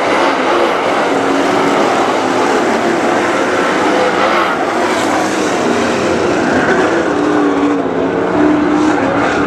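A pack of dirt late model race cars running at racing speed, their V8 engines blending into a loud, steady drone. Several engine pitches waver up and down as the cars pass and circle the track.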